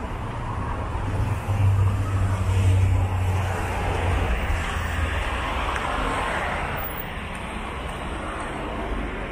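Road traffic: cars driving past on a busy road, a steady wash of engine and tyre noise with a low rumble that swells about a second and a half in and eases off by about five seconds.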